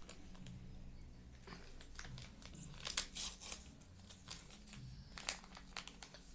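Crinkling and tearing of a small paper or plastic packet, likely a vanilla sugar sachet being opened, in short irregular crackles that are densest about three seconds in.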